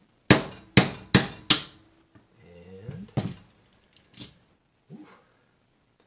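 Blows on the T-handle of a brass cleaning rod, driving a squib bullet out of a Glock pistol barrel held in a bench block: four quick, sharp knocks within about a second and a half, another knock about three seconds in, and a light ringing clink about four seconds in.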